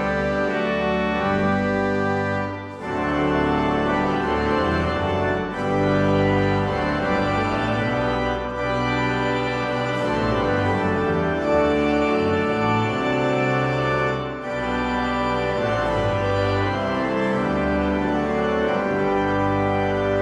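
Church organ playing a hymn in full, sustained chords, the chords changing steadily, with two short breaks between phrases.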